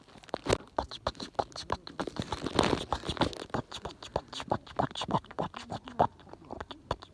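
Campfire crackling: a rapid, irregular run of sharp snaps and pops from burning wood.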